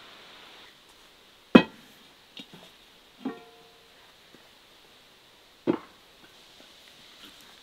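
A heavy cast-iron pan and its lid handled on a wooden table: three sharp knocks, the middle one a metal clank that rings briefly, with a few small clicks between.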